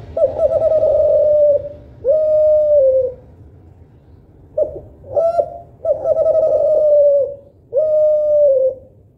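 Spotted dove (derkuku, Kelantan type) cooing. First a long, even coo and a closing coo that falls away; then, after a pause of about a second and a half, the phrase comes again: two short coos, a long coo, and a closing coo that drops in pitch at its end.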